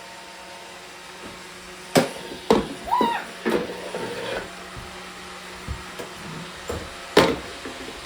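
Robot vacuum running with a steady hum, broken by several sharp clicks and knocks, the loudest about two seconds in and again near the end.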